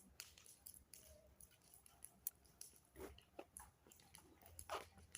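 Faint, irregular clicks and crunches, scattered at no even rhythm, a little louder about three seconds in and again near the end.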